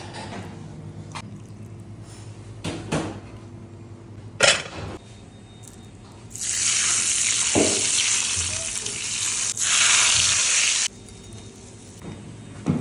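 A few sharp knocks, the loudest about four and a half seconds in, then hot fat poured over sliced steak on a platter sizzles loudly for about four and a half seconds and stops abruptly.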